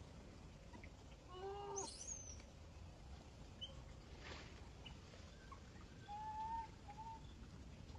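Faint animal calls over a low steady hum: a short arching call with several overtones about a second and a half in, a high squeak right after it, and a brief whistled note around six seconds.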